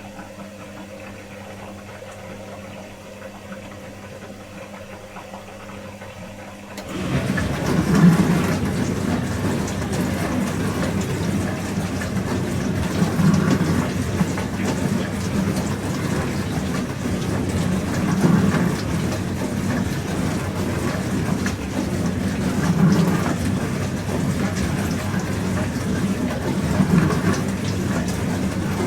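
Pro Action PRSLG96W slimline dishwasher running: a low steady hum, then about seven seconds in the wash pump starts and water sprays and splashes inside the tub, swelling about every five seconds.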